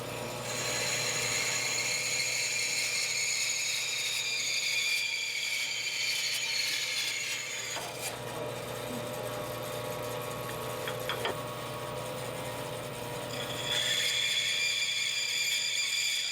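Wood lathe running with a turning tool cutting the spinning wooden mallet handle: a steady motor hum under a scraping hiss with a whining edge. The cutting eases off about halfway through and bites in again near the end.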